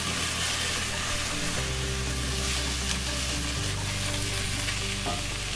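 Shallots, mushrooms and chopped red pepper sizzling in oil in a cast iron Dutch oven as they are stirred with a spatula. Low sustained background music notes run underneath, changing every two seconds or so.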